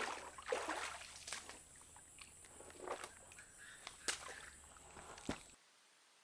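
Faint irregular sloshing and splashing of water, with scattered sharp knocks about a second apart. Near the end it drops to a faint steady hiss.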